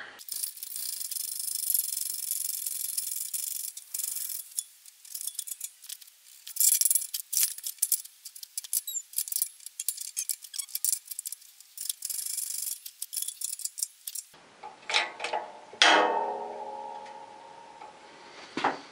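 A hiss for the first few seconds, then steel parts clinking and rattling as a golf-cart axle and steel press plates are handled and set up in a hydraulic shop press. About sixteen seconds in, a sharp metal clank rings on for a couple of seconds.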